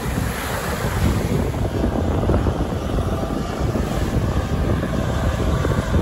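Helicopter passing overhead, a steady low rumble of rotor and engine mixed with wind buffeting the microphone.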